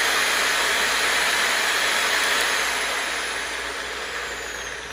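Makita GA9030 9-inch angle grinder running at full no-load speed with a steady high whine. Over the last couple of seconds it winds down, the whine falling in pitch as the disc coasts to a stop.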